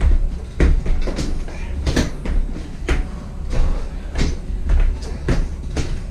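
Feet thudding onto a bench during repeated step-ups, about one to two landings a second, over a steady low hum.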